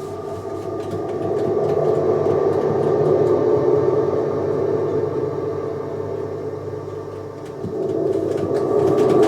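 Sustained, slowly swelling chords of ambient music, a low drone held under a dense mid-range chord; it grows louder over the first two seconds, sinks about seven seconds in and swells again near the end.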